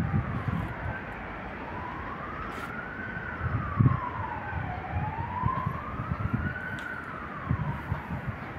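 Emergency vehicle siren wailing, its pitch rising and falling slowly, each rise or fall taking about two seconds, over low rumbling gusts.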